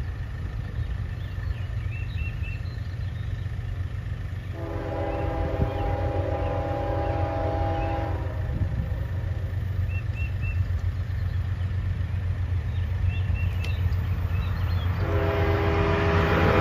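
Approaching Norfolk Southern diesel freight locomotive sounding its multi-note air horn for the road crossing: one long blast about four and a half seconds in, and another starting near the end. A low rumble runs underneath, growing louder toward the end.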